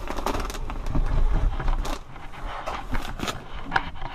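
Irregular knocks, scrapes and rustling as a person climbs down out of a small wooden attic loft, with a low rumble underneath.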